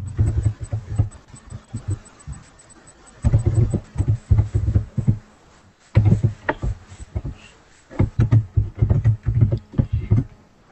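Typing on a computer keyboard, heard through a microphone on the same desk as bursts of quick, low thuds with short pauses between them.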